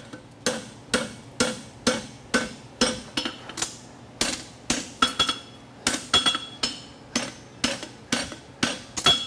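Farrier's hand hammer striking a hot steel draft horseshoe held in tongs on an anvil, about two blows a second. Each blow gives a short metallic ring.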